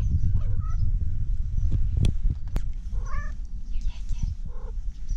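Tabby cat meowing in short, hoarse calls that sound like a duck's quack: a faint one at the start, a clearer one about three seconds in, and a couple of short ones near the end. Two sharp clicks come about two seconds in.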